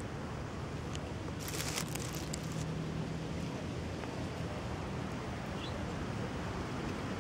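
Steady outdoor background noise with wind on the microphone, and a brief rustle about one and a half seconds in.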